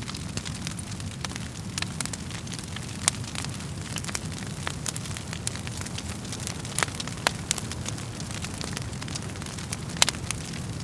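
Wood fire burning in a fireplace: a steady low rumble of flames, with frequent crackles and sharp pops from the burning wood. The loudest snaps come about three, seven and ten seconds in.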